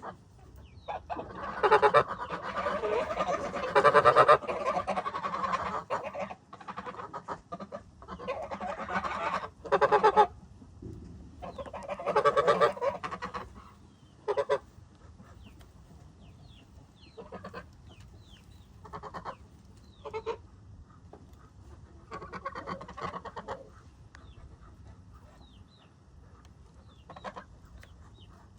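A group of ducks quacking: loud bursts of rapid, overlapping quacks that die down after about 13 seconds into quieter scattered calls, with one more loud burst past the 20-second mark.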